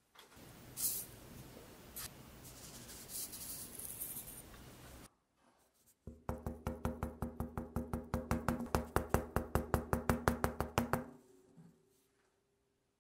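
A paper cup packed with sugar knocked rapidly against a wooden tabletop, about eight knocks a second and growing louder, to settle the sugar so the cup fills. Before it, faint handling noises with a few light clicks.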